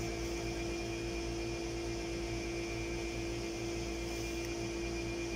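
A steady electrical hum: one constant mid-pitched tone over a low, flickering rumble.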